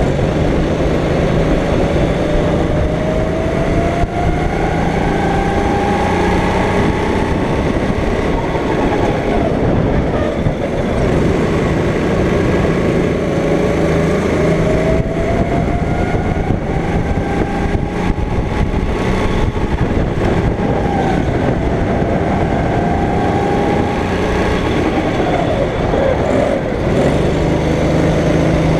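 Go-kart engine under load, its pitch climbing steadily for several seconds as the kart accelerates and then dropping as it slows, about three times over.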